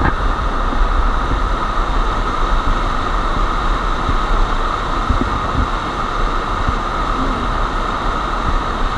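Steady rushing roar of a waterfall, an even wash of falling water that does not change.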